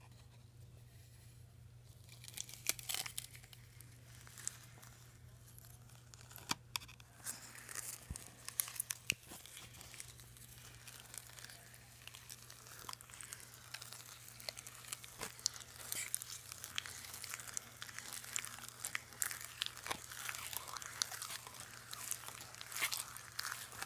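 A stir stick working through thick, lumpy paint that had frozen, in a metal can: an irregular run of small wet crackles and clicks starting about two seconds in.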